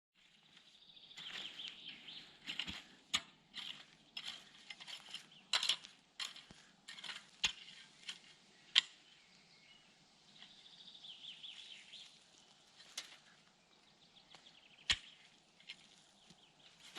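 Digging in sandy soil: gritty scraping with a scatter of sharp clicks and knocks, the loudest about nine seconds in.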